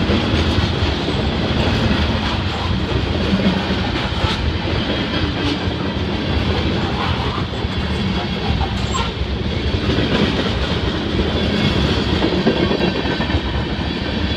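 Freight train tank cars and covered hoppers rolling past close by: a steady rumble of steel wheels on rail, with scattered clicks as the wheels cross rail joints.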